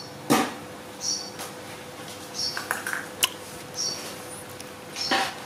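Small plastic cup knocking and clattering on a concrete floor as a young macaque handles it, the loudest knock about a third of a second in. A short, high double chirp repeats about every second and a half underneath.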